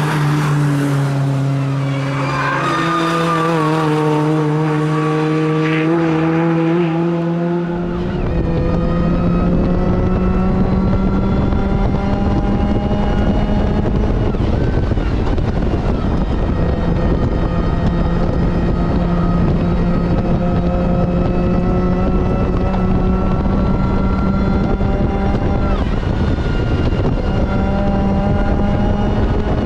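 Supercharged Mazda MX-5 NB four-cylinder engine under hard driving, its note dipping and rising through the first several seconds. From about eight seconds in it holds a steady, slowly climbing note at full throttle under a heavy wind and road rumble.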